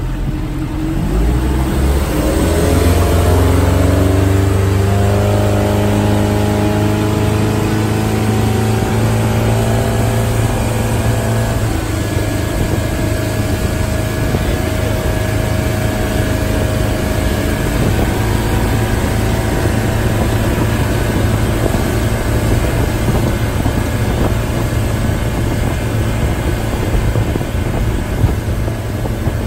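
Motorboat engine opening up from low speed, its pitch rising over the first few seconds, then running steadily at speed over rushing water.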